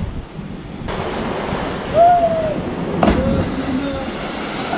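Steady sea surf and wind noise. A short rising-and-falling cry comes about two seconds in, and a sharp thump about a second later as something plunges into the sea below the cliff.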